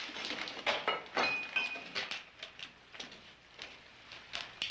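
A scatter of small knocks and scrapes with a brief squeak a little over a second in.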